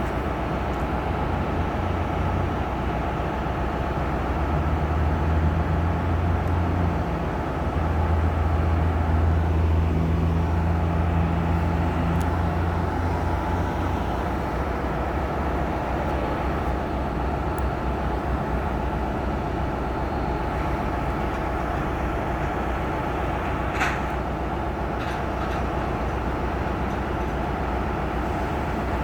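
Amtrak passenger train running with a steady rumble. A deep diesel engine hum swells for about ten seconds, then fades back into the rumble. A single sharp click comes about three-quarters of the way through.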